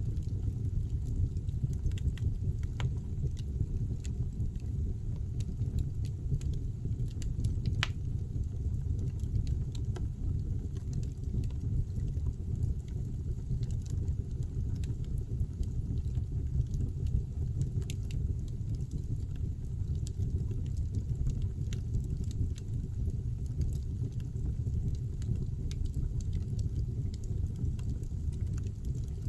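Wood fire burning in a fireplace: a steady low rumble of the flames with scattered faint crackles and pops of the burning firewood.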